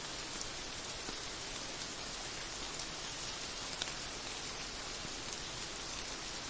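Steady rain falling: a dense, even hiss with scattered light drop ticks, and one sharper tick a little over halfway through.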